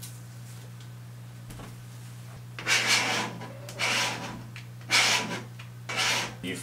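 A plastic card scraped across contact paper stuck on window glass in four sweeping strokes, starting about two and a half seconds in, smoothing the film down and pushing out air bubbles. A steady low hum runs underneath.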